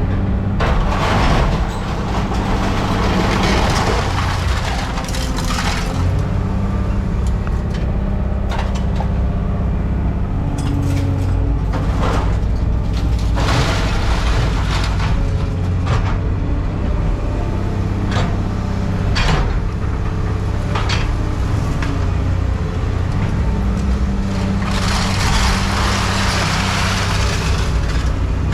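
A heavy vehicle's engine running steadily, with scattered knocks and clanks through it and a longer hiss near the end.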